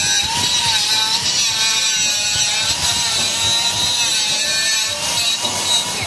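Small abrasive-disc grinder whining as it grinds the end of a steel motor shaft, its pitch dipping and rising as the disc bites, over a steady high hiss. It is taking the sharp edge off the shaft end so a fan blade hub can slide off.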